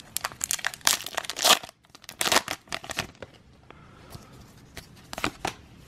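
Foil wrapper of a Pokémon trading-card booster pack being torn open and crinkled by hand: a run of crackling tears in the first three seconds, loudest about a second and a half in, then a few more crinkles a little after five seconds.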